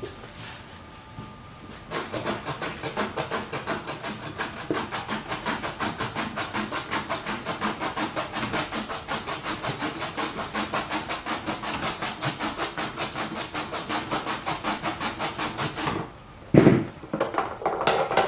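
A carrot being rubbed rapidly back and forth across the shredding blade of a plastic mandoline vegetable chopper: an even, rasping stroke about five times a second that stops suddenly. A few loud plastic knocks follow near the end.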